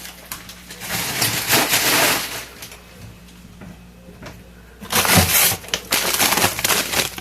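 Plastic bags of frozen food being handled and shifted in a chest freezer, crinkling and rustling in two stretches with a quieter pause between.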